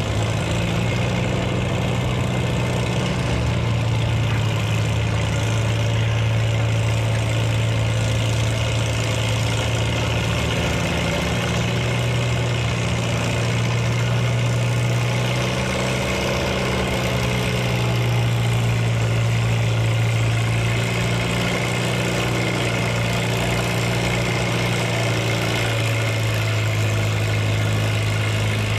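Farm tractor engine running steadily on a deep, even note, with only slight swells in level.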